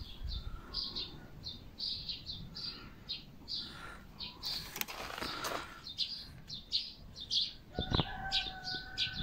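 Small birds chirping: short, high chirps repeated two or three times a second, with a longer, steadier call near the end and a couple of sharp clicks.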